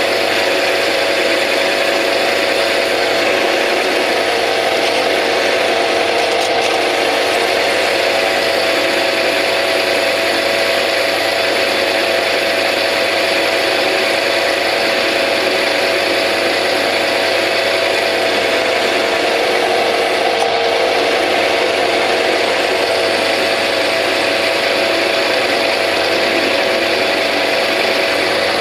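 Bernardo P 600 G metal lathe running steadily at about 560 rpm while a parting blade in a rear toolpost cuts off a steel bar, with a constant gear hum. There is no squeak, scream or rattle: the parting blade is cutting cleanly, without chatter.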